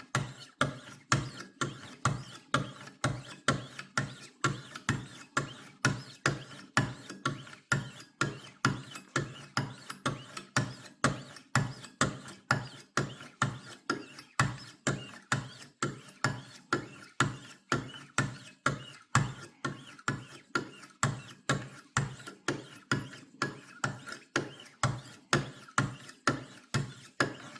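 Wicked Edge WE60 guided sharpener's 1600-grit stones stroking along a steel knife blade in a steady rhythm, about two strokes a second, each starting sharply and fading quickly.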